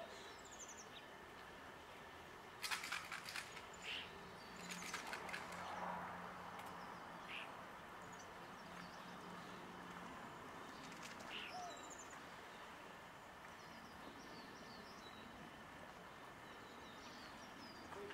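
Quiet outdoor ambience with scattered short chirps from small birds. A brief cluster of sharp clicks comes about three seconds in.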